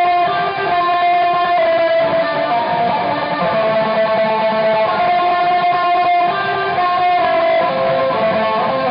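Electric guitar playing long sustained notes that ring on steadily.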